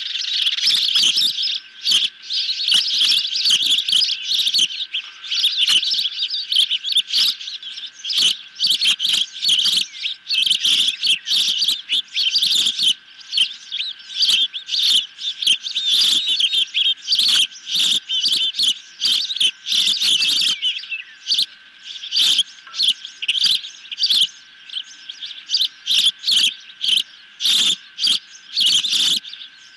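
Young ospreys on the nest calling: runs of shrill, rapid chirps that repeat with short breaks.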